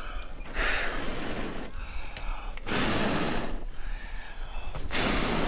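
A person blowing out hard, three long breaths about two seconds apart.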